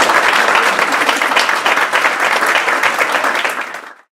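Audience applause, many people clapping steadily, fading out near the end.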